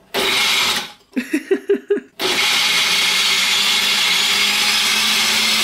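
Countertop blender crushing Bastogne biscuits into crumbs. It gives a short burst, then about five quick pulses, each spinning up in pitch, and then runs continuously, grinding steadily.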